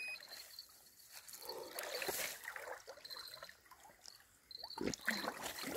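Faint splashing and sloshing of shallow water as a large wels catfish stirs in it at the grassy bank, with one louder splash about five seconds in. Crickets chirp in a thin high line.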